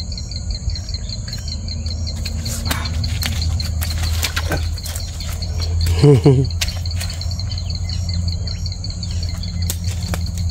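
Insects chirping steadily in a regular high pulse, about two chirps a second, over a low steady hum. There are a few light clicks, and one short, louder low sound with a falling pitch about six seconds in.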